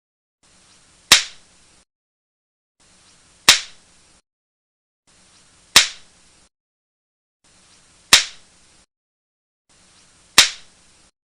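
A sharp crack, repeated five times at even intervals of a little over two seconds, each one dying away quickly. A faint hiss comes and goes with each crack.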